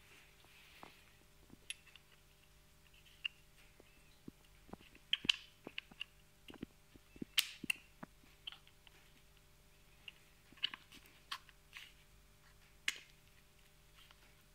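Small irregular metal clicks and taps as a hex screwdriver bit is pushed into and worked out of the bit holder of a Bosch GDX 18 V-EC cordless impact driver. The loudest clicks come about five and seven seconds in.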